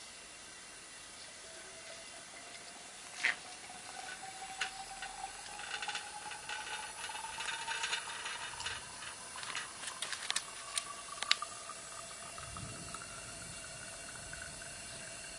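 Lead smelting furnace running: a faint whine climbs slowly and steadily in pitch throughout. Hissing and scattered sharp crackling clicks come through the middle stretch.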